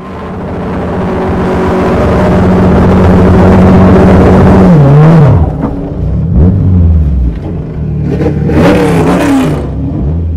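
Car engine running under load, the sound swelling over the first few seconds and holding a steady pitch, then dropping in pitch about five seconds in and revving unevenly, with a brief rush of noise near the end.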